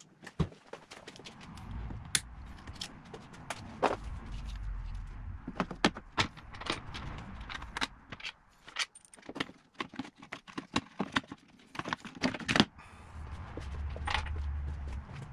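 Irregular clicks, knocks and clatter of plastic and metal parts and hand tools being handled while the battery tray is unfastened and lifted out of the engine bay, with a low rumble at times as parts are shifted.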